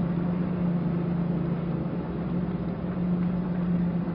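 Vehicle engine running steadily with a constant low hum.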